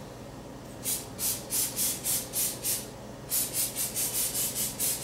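Butter-flavoured cooking spray spritzed over raw tilapia fillets in quick short hisses, about three or four a second. There are two runs of spritzes with a brief pause between them, starting about a second in.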